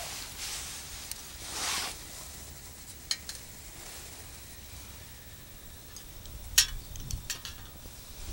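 Light metal clinks and knocks as a folding pot stand and a steel mug are set over a burning alcohol burner, the sharpest clink about six and a half seconds in. Wind rumbles low on the microphone.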